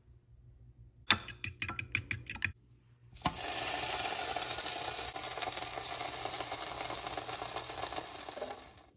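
A quick run of light clicks and taps, then Canadian bacon sizzling steadily on a hot electric griddle, the sizzle starting suddenly about three seconds in.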